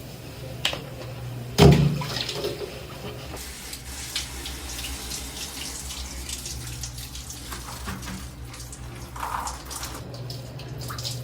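Water running from a shower head lying on the floor, a steady spray, with a sharp knock about two seconds in and small clicks throughout.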